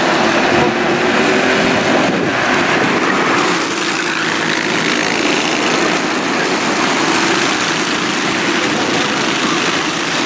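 A pack of racing go-karts' engines buzzing steadily at speed as they lap the circuit.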